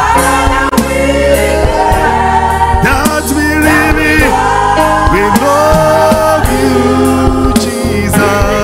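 Live gospel worship song: sung voices holding long, drawn-out notes over steady instrumental backing.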